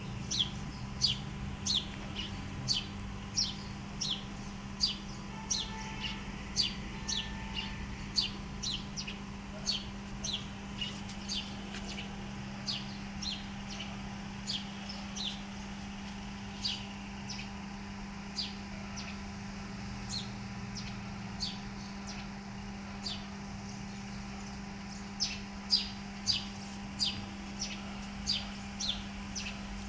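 A bird calling over and over: short, high chirps that drop in pitch, two or three a second, with a pause of several seconds midway. A steady low hum runs underneath.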